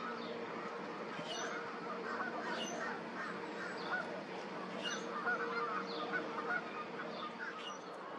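A mix of bird calls: many short calls in the middle range overlapping one another, with thin, high chirps from small birds about once a second, over a steady low hum.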